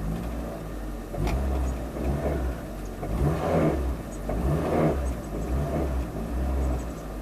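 Toyota Tercel's four-cylinder engine running and revved in several short bursts. The owner hears a clatter that he takes for rod knock from worn rod or main bearings.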